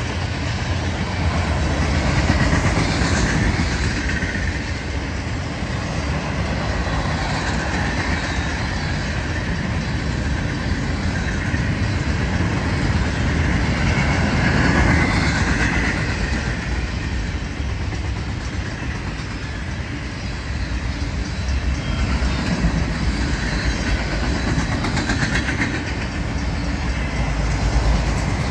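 Freight train cars rolling past close by: the steady rumble and clatter of steel wheels on the rails, swelling and easing a little as the cars go by.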